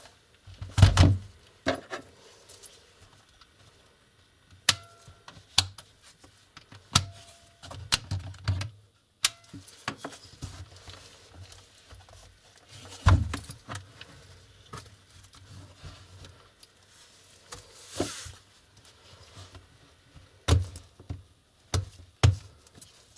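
Scattered plastic clicks and knocks from handling a Lenovo IdeaPad laptop: the battery being unlatched and pulled out, and the laptop set down and turned over on a cloth-covered table. The loudest is a heavy knock about a second in.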